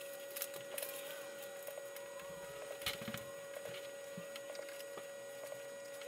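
Quiet room tone with a steady faint high whine and a few scattered soft clicks and knocks.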